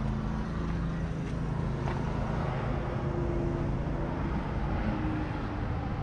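Steady low hum of motor-vehicle noise, like passing road traffic or an engine running somewhere nearby.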